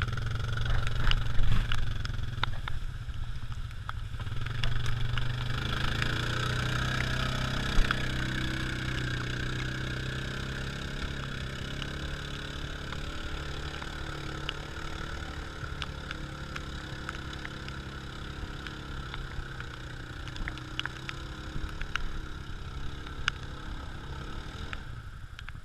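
Off-road vehicle engine running steadily, louder for a stretch early on, then slowly fading as the vehicle works its way along the muddy track. Scattered sharp clicks are heard over it.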